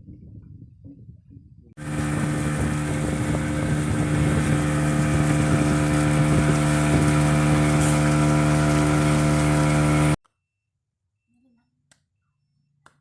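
An engine running at a steady speed, cutting in abruptly about two seconds in and cutting off abruptly about eight seconds later.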